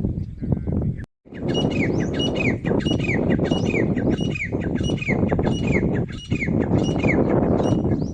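A bird calling over and over, about two short calls a second, each sliding down in pitch, starting after a brief cut about a second in. It is heard over a loud, steady low rumble of outdoor noise.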